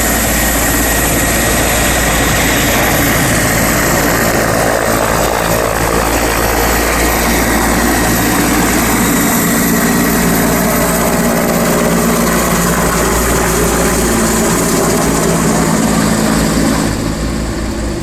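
Helicopter running close by: a loud, steady rotor and turbine noise with a constant high whine, easing slightly near the end.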